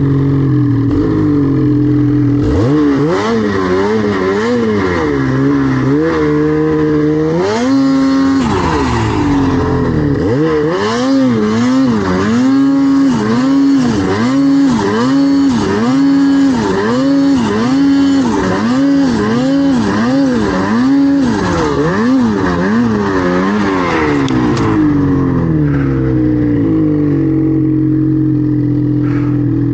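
Snowmobile engine running, then revving up and down about once a second for over a dozen cycles, settling back to steady running near the end.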